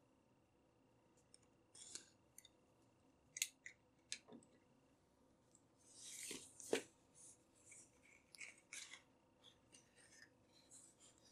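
Utility knife slitting the seal on a cardboard box in short scrapes and clicks, then the cardboard box being turned over and its outer sleeve slid off, with a louder swish and knock about six and a half seconds in.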